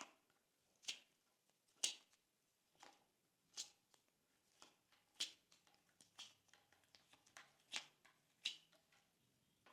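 Glossy slime being pressed and poked by hand, making sharp sticky clicks and air-bubble pops about once a second. After about six seconds they come faster and lighter.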